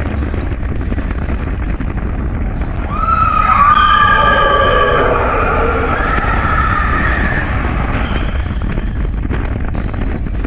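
Expedition Everest steel roller coaster train rumbling and clattering along its track, with heavy wind noise. From about three seconds in, several riders scream together for a few seconds.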